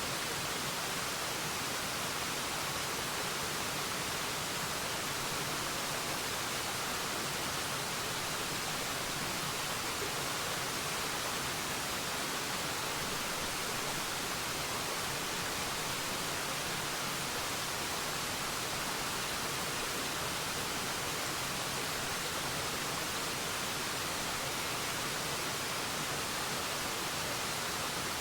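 Waterfall: a steady, even rush of falling water, a constant hiss with little low rumble.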